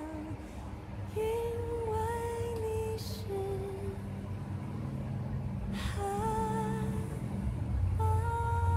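A high, light male voice sings slow, long-held notes in a few phrases over a soft accompaniment, with short breaths between the phrases.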